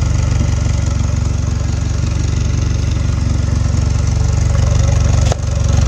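Car engine idling steadily, heard close at the tailpipe as a low, even exhaust rumble.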